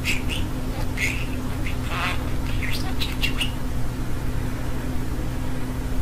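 Talking budgerigar chattering out human phrases in quick, high bursts, such as "while he tries to intervene, we…". The bursts run through the first three and a half seconds, then pause, over a steady low hum.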